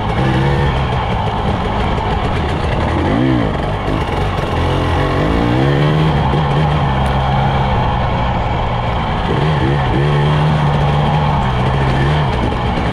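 2021 Husqvarna TE 300i 300cc two-stroke single-cylinder engine revving up and down over and over as the dirt bike is ridden over a rough trail, heard up close from a camera on the front fender. It holds two longer steady pulls, about midway and again near the end.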